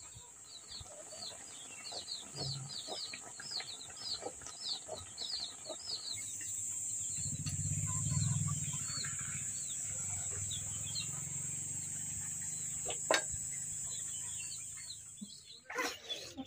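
Small birds chirping in quick repeated calls, about two a second, over a steady high-pitched hiss; the chirping fades about six seconds in as a low rumble rises, with a single sharp click shortly before the end.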